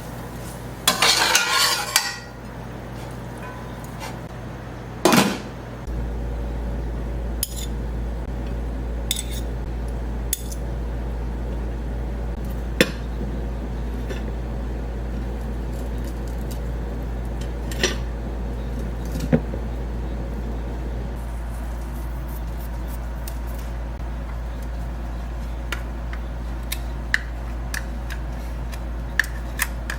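Kitchen clatter of pots, pans and cutlery during cooking: a short run of clattering about a second in and a sharp knock around five seconds, then scattered single clinks. A steady low hum comes in about six seconds in and continues under the clinks.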